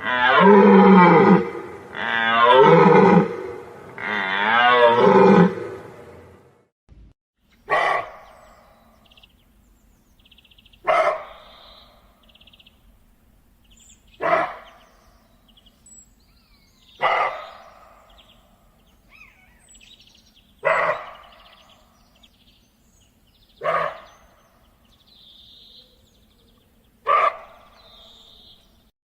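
Deer calling: three long, loud bellowing calls in the first six seconds, then seven short, sharp barks spaced about three seconds apart.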